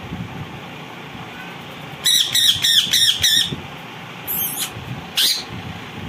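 Indian ringneck parakeet squawking: a quick run of about five shrill calls about two seconds in, then two more single calls near the end.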